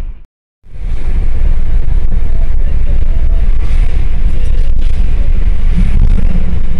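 Moving car's wind and road noise, a loud steady rumble buffeting the phone's microphone. The sound cuts out completely for a moment just after the start, then returns.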